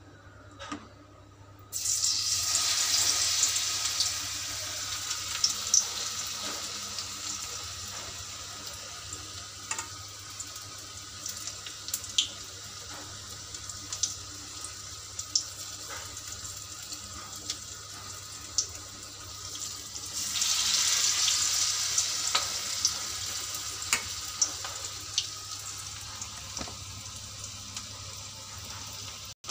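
Onion pakoras deep-frying in hot oil in a kadhai: the sizzle jumps up suddenly about two seconds in as onion-and-gram-flour batter goes into the oil, eases off, then surges again about twenty seconds in, with sharp spitting pops throughout.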